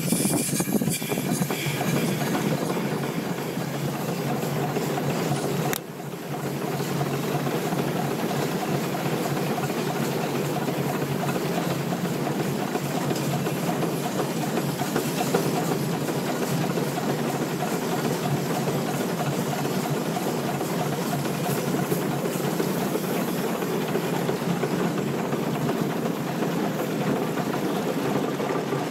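Vertical-boiler steam donkey engine running steadily as it winches in its cable, with a short drop in level about six seconds in.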